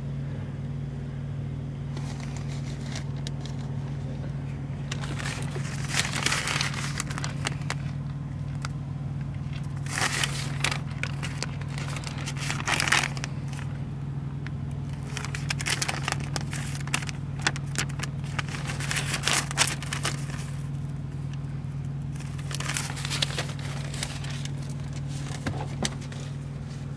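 Steady low drone inside a car, with bursts of crackling, crinkling handling or rustling noise every few seconds.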